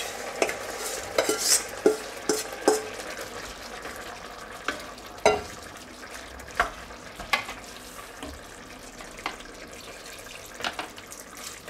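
A spoon scraping meat out of a stainless steel bowl into a cast-iron Dutch oven of simmering goulash and stirring it: irregular knocks and scrapes against bowl and pot over a low sizzle, thickest in the first few seconds and sparser after. Near the end, liquid is poured in from a jug.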